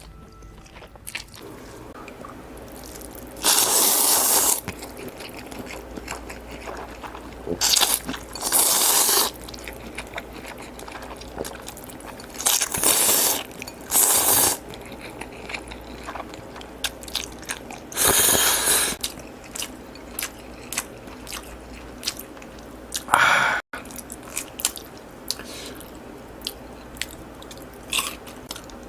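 Close-miked eating sounds: a series of loud bites, each about a second long and spaced a few seconds apart, with quieter chewing and small wet mouth clicks between them.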